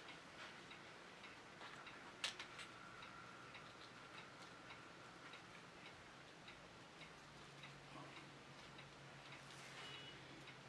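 Near silence with faint small clicks and ticks of needle-nose pliers bending soft copper wire into a hook loop, and one sharper click about two seconds in.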